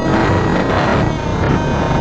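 Electronic background music.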